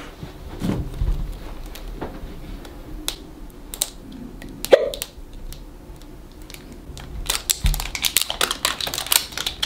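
Clicks and crinkles of a plastic-wrapped toy ball being picked at and peeled open by hand. The clicks are sparse at first and turn into a busy crackle near the end.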